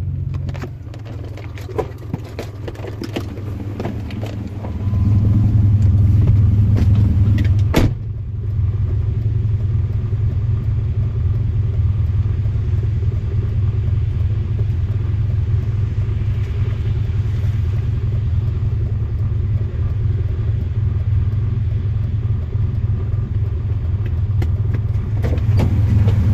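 Car engine and road rumble heard from inside the car, steady and low, growing louder for a few seconds about a third of the way in. A single sharp click comes around the same point, after which the rumble carries on evenly.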